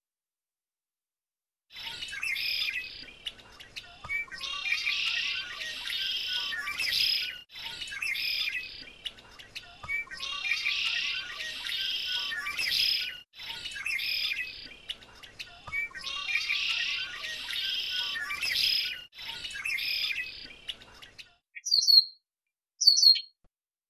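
Red-winged blackbirds calling and singing in a dense chorus, starting about two seconds in. The same few seconds of song come round three times over. Near the end come two short, sharp, louder calls.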